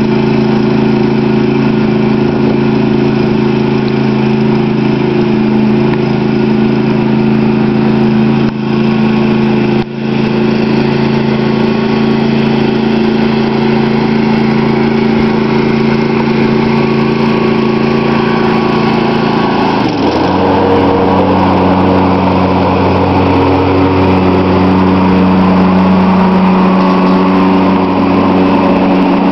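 John Deere riding lawn tractor's engine running steadily. About two-thirds of the way through, its note drops to a lower pitch and holds there.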